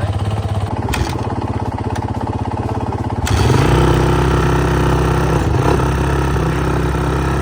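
Four-stroke single-cylinder dirt bike engine running with a fast, even beat, then opened up a little over three seconds in, running louder and higher and holding there.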